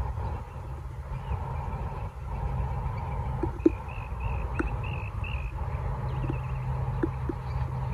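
A bird calling in a quick run of short chirping notes about halfway through, over a steady low rumble of wind on the microphone, with a few faint clicks.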